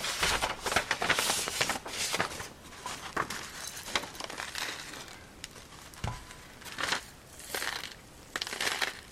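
Paper crinkling and rustling as red peppercorns are poured off a folded sheet into a pepper grinder, the peppercorns crackling and rattling. Busiest in the first couple of seconds, then in short scattered bursts.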